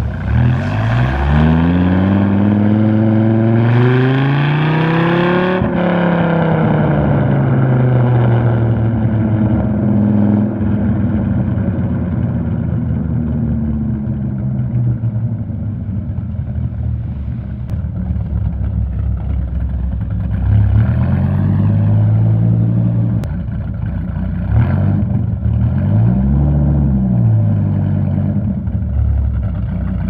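Gen 2 Dodge Viper GTS's 8.0-litre V10, cammed and with an aftermarket exhaust, pulling hard with the revs climbing for about six seconds, then settling into a steady cruise. In the last third the revs rise and fall several times as the car slows.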